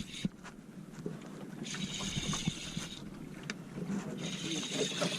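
Fishing boat's engine running steadily at sea, with wind and water hiss rising twice and a few scattered clicks and knocks on board.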